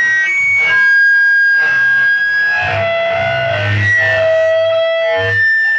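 Live noise music from electronics and effects: held high tones that step to a new pitch every second or so, over a continuous low droning hum.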